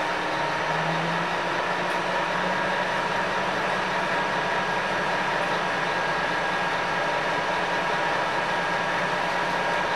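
Scania K230UB bus engine idling, heard inside the passenger saloon as a steady low hum with a faint steady whine above it.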